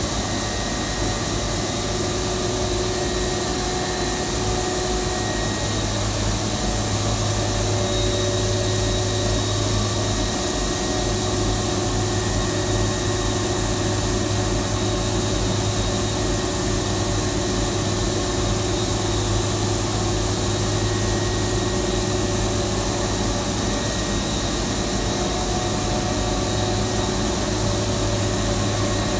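A PE extrusion coating machine for paper cup stock running steadily: a loud, even hiss of machinery and air, with a low hum and a few faint steady tones underneath.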